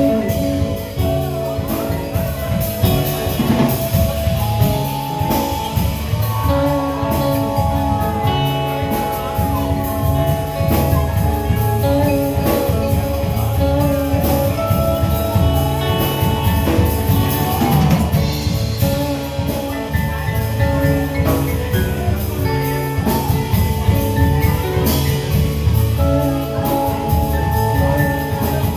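Live band playing an instrumental passage: mallet keyboard, electric bass, electric guitar and drum kit, with a strong steady bass line under sustained melody notes.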